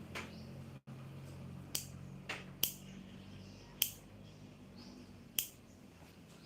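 Nail clippers snipping fingernails: six sharp, irregular clicks, roughly a second apart.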